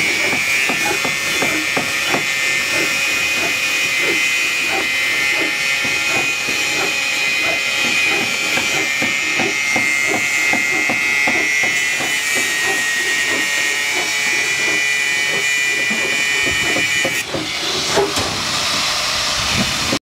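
Electric angle grinder with an abrasive cut-off disc cutting steel rebar, running with a steady high whine and many short knocks underneath; the whine stops about three seconds before the end.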